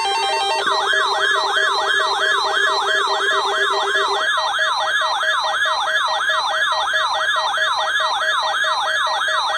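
A weather alert radio's alarm siren: a warbling tone sweeping up and down about three times a second. It starts about half a second in, after a short stepped pattern of steady beeps, and is set off by the NOAA Weather Radio warning-alarm test. A steady lower tone sounds beneath it for the first four seconds.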